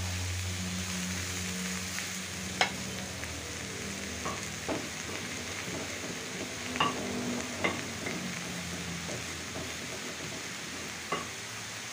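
Vegetables sizzling as they stir-fry in a metal wok over a gas flame, with a metal spatula stirring them at first. A few sharp ticks and clicks stand out over the steady frying hiss.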